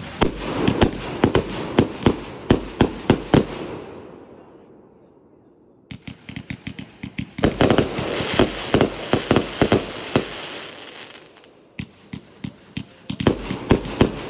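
Jammin 191-shot consumer firework cake firing in rapid volleys of sharp reports as its shots launch and burst. The firing dies away about four seconds in, starts again about two seconds later, and pauses once more before a third volley near the end.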